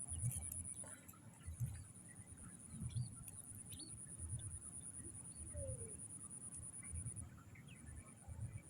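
Steady, high-pitched insect drone that breaks off briefly near the end and then resumes, over soft low thumps about every second and a half.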